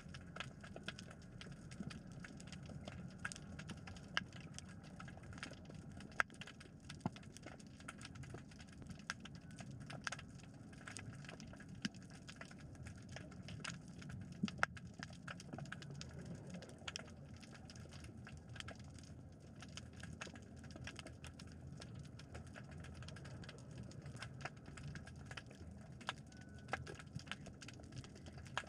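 Underwater reef ambience: a steady low rush of water with a dense, irregular crackle of small clicks throughout.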